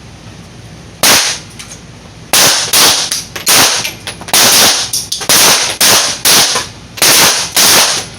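Pistol shots from several shooters firing a timed three-round string on a qualification range: about a dozen sharp reports, the first about a second in and the rest coming quickly, roughly two a second, each with a short echo.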